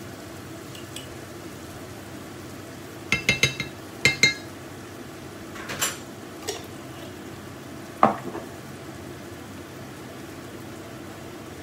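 Steady sizzling of food cooking in a pot, with a quick cluster of ringing clinks of a spoon against a jar and dishes about three to four seconds in, a single clink near six seconds, and a sharper knock about eight seconds in.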